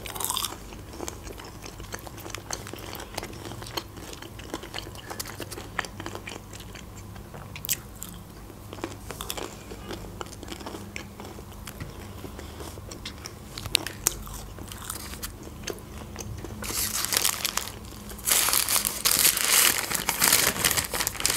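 Chewing and crunching of crispy fried food, a run of small crisp clicks. From about sixteen seconds in, loud crinkling of a paper sandwich wrapper being handled and opened.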